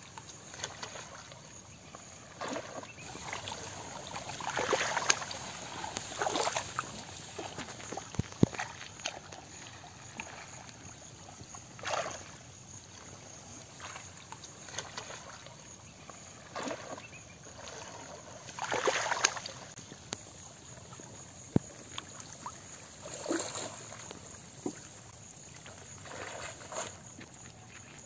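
Muddy shallow water sloshing and splashing in irregular bursts every few seconds as people wade through it and grope in it by hand for fish, with a couple of short sharp clicks.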